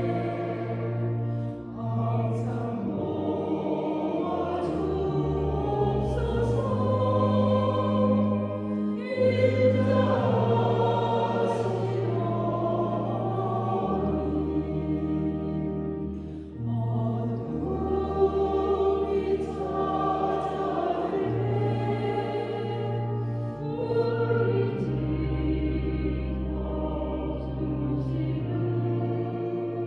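A Korean Catholic hymn to the Virgin Mary sung into a microphone, over a keyboard accompaniment that holds long bass notes changing every second or two.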